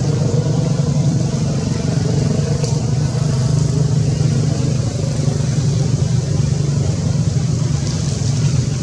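A steady low engine hum that holds level throughout, with a brief faint high chirp about two and a half seconds in.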